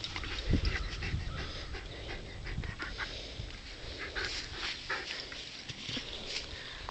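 Siberian husky panting and shifting about while a nylon sled harness is pulled over its head, with rustling of the straps and a few low thumps in the first couple of seconds.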